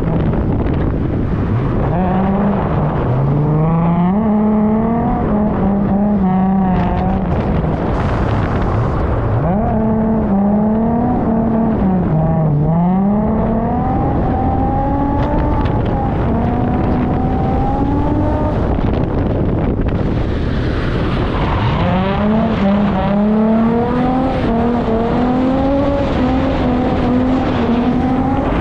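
Holden Calais V6 engine being revved hard in a drift run: the revs climb quickly, then hover high and waver up and down, dropping back and climbing again three times, over a constant rushing noise.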